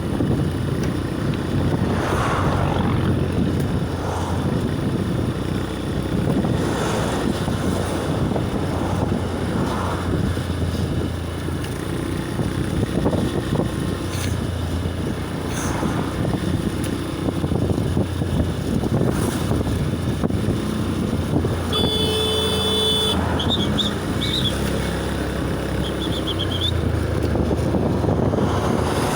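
Steady road traffic noise, with a short vehicle horn toot about three-quarters of the way through.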